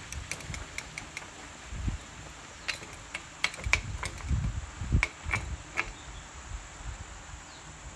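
Boiled noodles being tipped into a large steel wok of fried vegetables, with scattered sharp crackles from the pan and a few low thumps.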